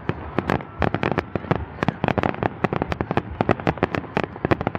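Aerial fireworks show: shells bursting in a rapid, irregular barrage of sharp bangs, several a second.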